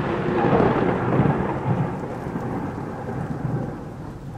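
Thunder rumbling over steady rain, slowly dying away.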